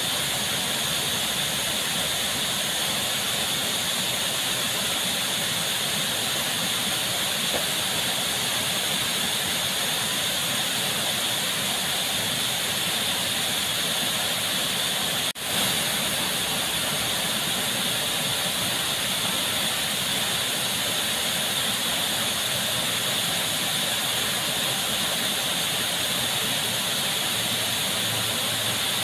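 Waterfall plunging into a pool: a steady rush of falling water, broken by a momentary dropout about halfway through.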